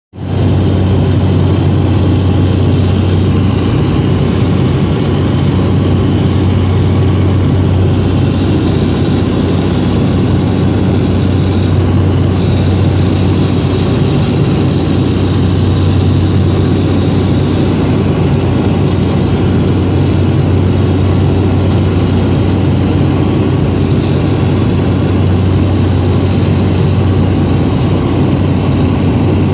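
Small aircraft's engine and propeller running steadily in flight, heard from inside the cabin as a loud, even low drone.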